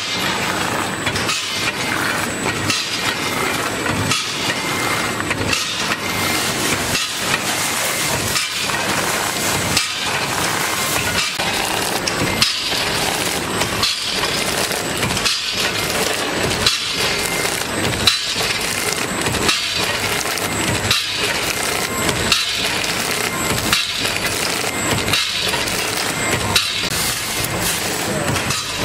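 Soonpack 320A granule packing machine running on peanuts: a steady crackling clatter of nuts pouring through the cup filler and plastic film working. It repeats in an even cycle about every 1.4 seconds, with a faint steady high-pitched tone over it.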